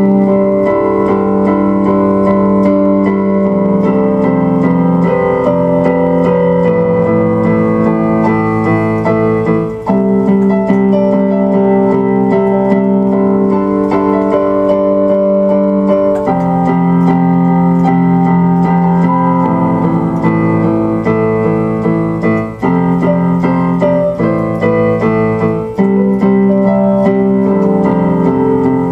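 Solo keyboard music: slow, held chords that change every few seconds.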